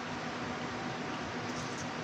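Steady background hiss with a faint low hum, and a few faint clicks from eating crab and rice by hand about one and a half seconds in.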